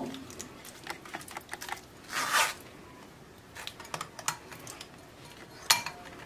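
A steel spoon scraping and pressing soft wood apple (bel) pulp through a stainless steel mesh strainer, with scattered light clicks and taps of the spoon on the mesh. There is a longer scrape about two seconds in and a sharper tap near the end.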